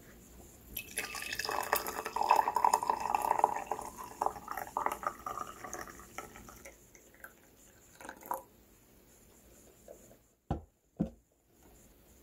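Tea pouring from a glass infuser teapot into a round glass tumbler: a steady stream for about five seconds that tapers off into drips. Near the end come two sharp knocks half a second apart.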